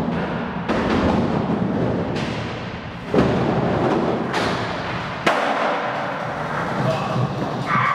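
Skateboard wheels rolling on the concrete floor and ramp with a steady rumble, broken by about five sharp board knocks and slaps that echo off the hard walls.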